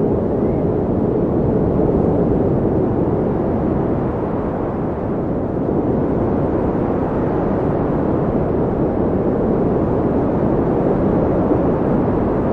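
Wind blowing steadily, a low rushing noise that swells and eases slightly.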